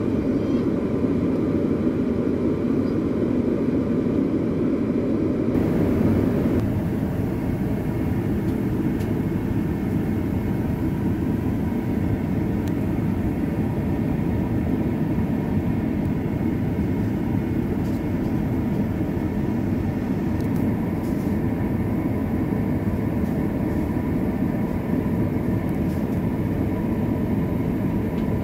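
Steady drone of an airliner cabin in cruise: jet engine and airflow noise heard from a window seat, even and low-pitched throughout.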